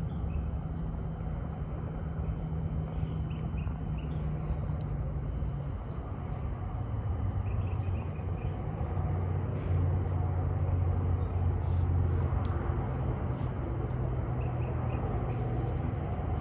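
A steady low motor hum, like an engine running, whose pitch shifts slightly partway through, with faint short high chirps every few seconds.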